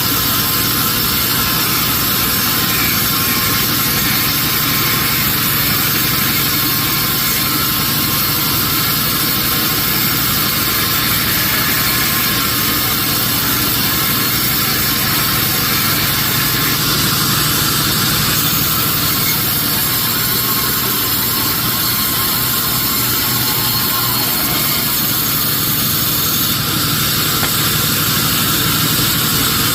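Sawmill machinery running steadily, a loud continuous mechanical drone with no clear breaks.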